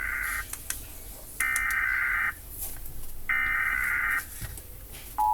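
United States Emergency Alert System alarm: the SAME header's digital data bursts, three harsh buzzy screeches about a second long and a second apart, the first already under way. Near the end the steady two-tone attention signal begins.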